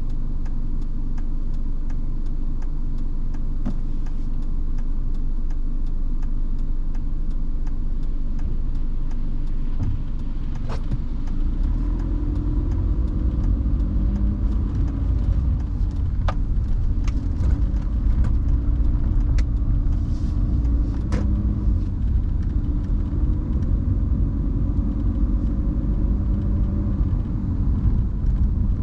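Car driving on wet roads at night, a steady low road-and-engine rumble that grows louder about eleven seconds in, with scattered sharp ticks.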